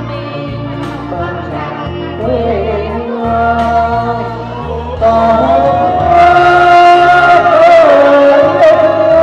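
A woman singing into a handheld microphone over backing music with a stepping bass line. About five seconds in her voice grows louder on a long held note.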